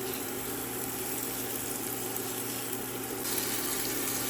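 Chicken curry sizzling in the oil of a robotic cooker's pot just after tomato is added, over a steady low hum from the machine. The sizzle turns brighter about three seconds in.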